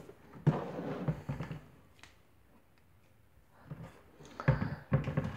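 A cardboard box being handled and moved aside: a few short scuffs and knocks about half a second in, a quiet stretch, then more handling noise near the end.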